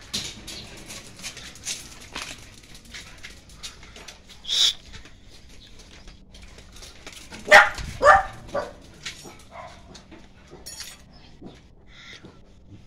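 Small dog barking, three sharp barks in quick succession a little past halfway, with a single high yelp earlier, over scattered light taps and scuffs.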